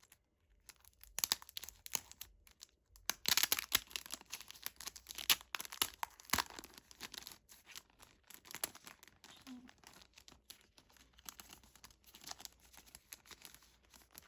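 Crinkling and rustling of paper and plastic as the album's inclusions are unpacked and handled, in irregular crackling bursts, busiest from about three to seven seconds in.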